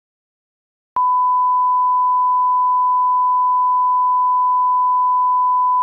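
Audio line-up test tone: one steady, pure, unwavering pitch that starts abruptly about a second in.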